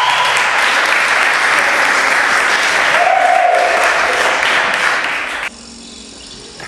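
Audience applauding, cutting off suddenly about five and a half seconds in.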